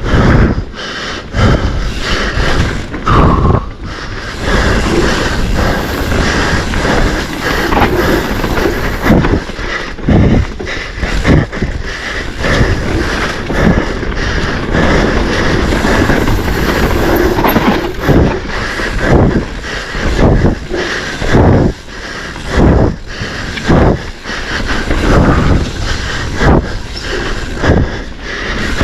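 Mountain bike ridden hard down a rough dirt trail: wind on the microphone over steady tyre noise, with frequent sharp knocks and rattles as the bike hits roots and rocks.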